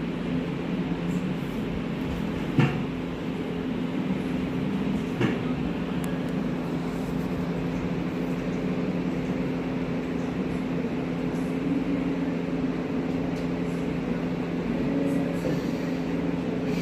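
Steady low machine hum with a few unchanging tones over a noisy hiss, broken by two short sharp knocks about two and a half and five seconds in.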